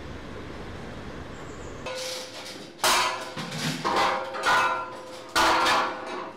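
Poles and bars clattering and knocking against stair railings and walls as they are carried down a stairwell. There are two loud bangs, one about three seconds in and one near the end, after a couple of seconds of low, steady rumble.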